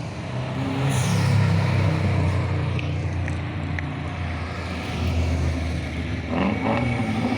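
Car engine running with a steady low hum that swells a little about a second in and again near the end.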